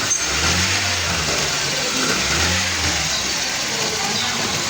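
Car engine running, with a deeper low hum coming in twice for about a second each.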